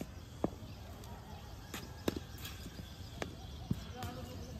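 Several sharp, short knocks, about four, a second or so apart: leather cricket balls being struck with bats in the practice nets.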